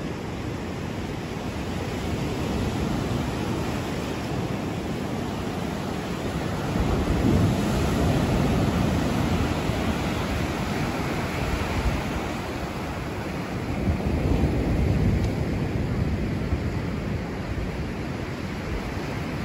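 Mediterranean surf washing onto a sandy beach, mixed with wind rushing over the microphone; the noise swells louder a few times.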